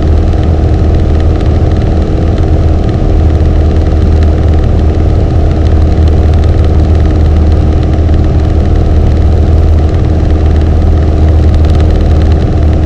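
Steady, loud drone of a Piper PA-28's piston engine and propeller in flight, heard inside the cabin.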